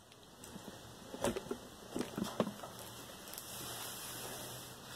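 Faint handling noises: a few soft taps and rustles, then a faint steady hiss near the end.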